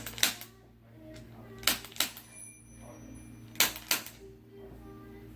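Chiropractic Activator adjusting instrument firing during a low-force spinal adjustment: sharp spring-loaded clicks in three pairs, each pair a quarter second apart and the pairs about two seconds apart.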